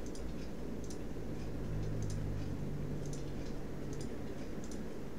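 Computer mouse clicking lightly and irregularly, about a dozen clicks, over a steady low background hum.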